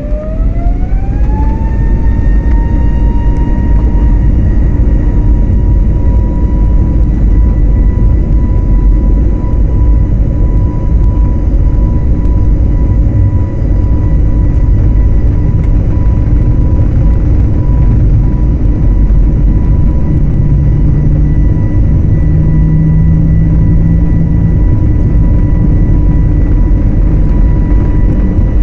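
Jet airliner's engines, heard from inside the cabin, spooling up to takeoff thrust: a whine rises over the first couple of seconds, then holds steady over a loud, continuous rumble as the plane rolls down the runway.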